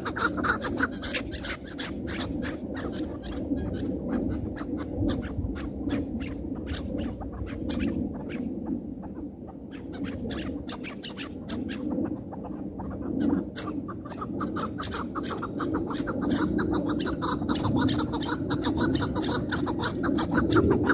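Chukar partridges calling: long runs of short, sharp repeated notes, several a second, over a steady low rumble.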